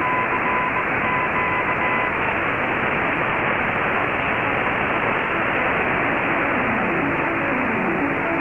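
Shortwave AM broadcast received weak and noisy on a communications receiver: a steady rush of static fills the audio. A steady high tone sounds through the static for the first two seconds, and faint sliding tones show through near the end.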